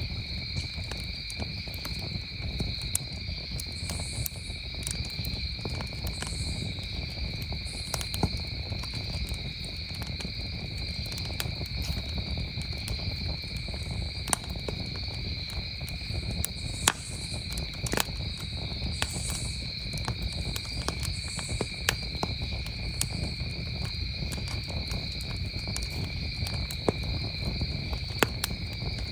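Campfire crackling, with sharp pops scattered irregularly throughout, over a low rumble. Crickets trill in a steady, unbroken high chorus behind it.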